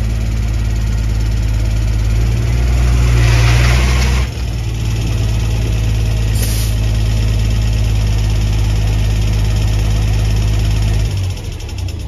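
Ford Cargo truck's diesel engine running steadily, louder for a moment about three to four seconds in, then shut off near the end and dying away.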